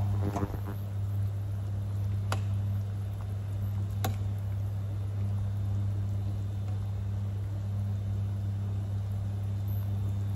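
A stainless steel pot of soup boiling on a glass-top hob, with a steady low hum underneath, while a metal ladle skims off the foam and ticks sharply against the pot twice, about two and four seconds in.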